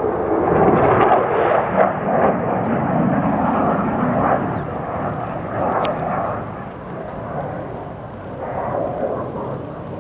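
Airplane flying over at an air show, a steady rushing engine noise that is loudest in the first few seconds and fades away toward the end.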